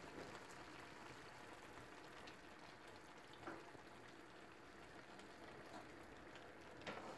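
Faint, steady sizzle of mixed vegetables cooking in a pan as milk is poured in, near silence overall, with one soft tick about three and a half seconds in.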